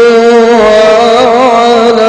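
A male Quran reciter's voice holding a long melodic note in mujawwad-style recitation, with wavering vocal ornaments from about halfway in.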